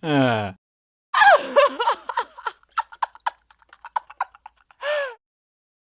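High-pitched human laughter. A falling vocal tail at the start, then about a second in a laugh that starts high and breaks into a run of short quick pulses that fade away, and one short falling "ah" near the end.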